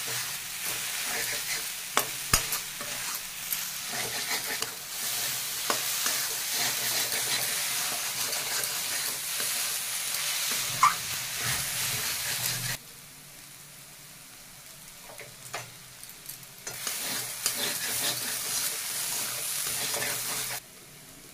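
Ground green pea masala sizzling as it fries in oil in a kadhai, with a metal spatula scraping and stirring it against the pan; the mix is being cooked until its moisture dries off. The sizzle cuts out a little past halfway, comes back a few seconds later, and stops again near the end.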